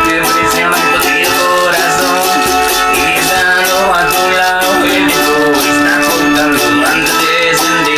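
Folk punk music: plucked strings over a fast, even rattling percussion beat.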